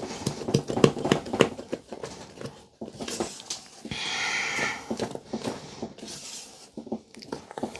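A spatula working thick buttercream by hand in a mixing bowl: irregular soft scraping and clicking strokes, with a longer rasping sound about four seconds in.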